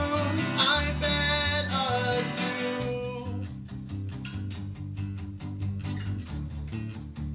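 Taylor acoustic guitar strummed in a steady rhythm over a Fender electric bass line, in an instrumental break of a folk-rock song. Fuller sustained upper notes drop away about three seconds in, leaving mainly the strumming and bass.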